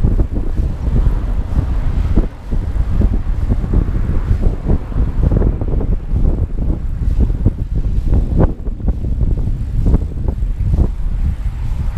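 Wind buffeting the microphone of a camera mounted on a moving recumbent trike: a heavy, continuous low rumble with frequent gusty thumps.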